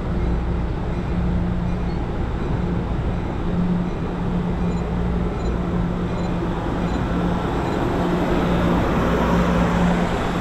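Amtrak Pacific Surfliner bi-level passenger cars rolling slowly past close by: a steady rumble of wheels on rail under a low, steady engine drone.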